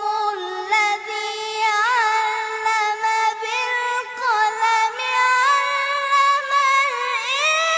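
Quran recitation in melodic tajwid style by a single high voice, holding long drawn-out notes with ornamented turns and wavers in pitch.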